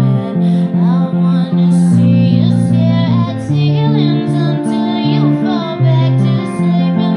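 A woman singing a slow song over her own strummed electric guitar, the chords changing about once a second.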